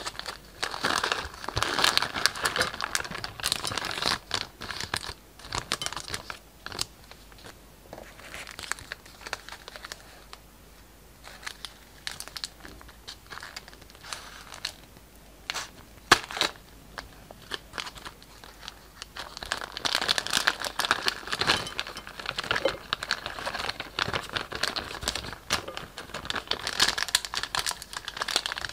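Thin plastic piping bag and packaging crinkling and rustling as hands handle and squeeze them, in two long busy stretches at the start and end, with scattered small clicks between and one sharp snip of scissors cutting the bag about halfway through.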